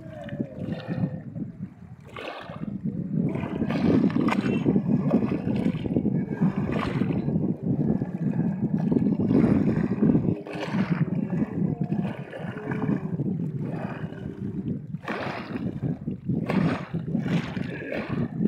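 Water lapping and splashing in irregular surges over a steady low rumble.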